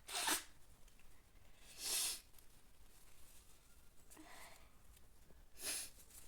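A person sniffing and breathing through the nose: four short breathy bursts of air, about two seconds apart.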